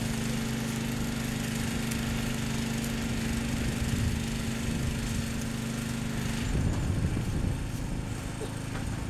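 Electric arc welding on sheet steel: a steady buzzing hum under a crackling hiss. The hum stops about six and a half seconds in, when the arc is broken.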